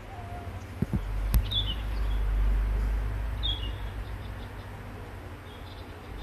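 Outdoor ambience: a low rumble that swells about a second in, a couple of soft knocks, and two short, high, falling bird chirps, about a second and a half and three and a half seconds in.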